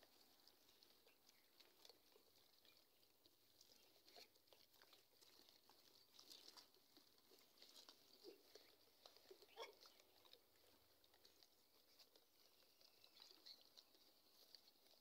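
Very faint, scattered clicks and light patter over a steady high hiss: a troop of gray langurs feeding on guavas, with small sounds of biting and moving about.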